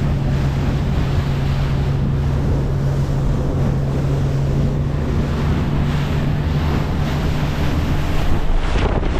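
Strong wind buffeting the microphone over the steady low hum of a boat motor running. The hum drops away near the end.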